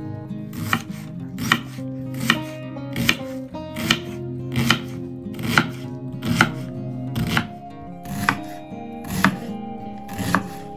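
Kitchen knife chopping an onion on a wooden cutting board: single crisp knocks at a steady, unhurried pace of about one a second. Background music plays underneath.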